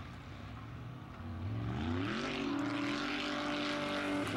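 Chevrolet Camaro GT3 race car's V8 engine revving during show driving. It is quieter for the first second, climbs in pitch about a second and a half in, then holds high, steady revs.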